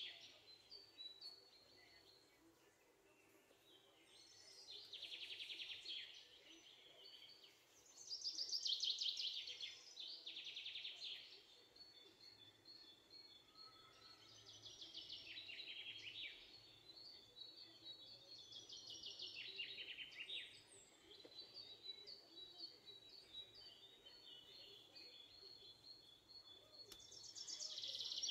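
Faint birdsong from a recorded bird-chirping sound effect used as the background track: bursts of rapid, high chirping trills every few seconds over a thin, steady twittering.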